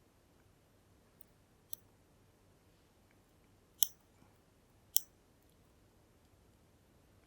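Sharp metallic clicks of a lock pick working the pins of a Kale Kilit 10-pin dimple lock: a light click, then two louder ones about a second apart.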